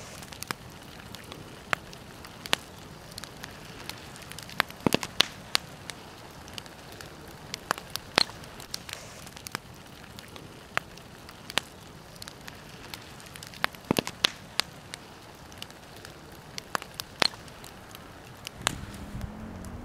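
Wood campfire burning, crackling with irregular sharp pops over a steady hiss.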